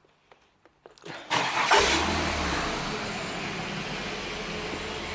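Car engine cranked briefly by the starter, catching about a second and a half in, then settling into a steady idle.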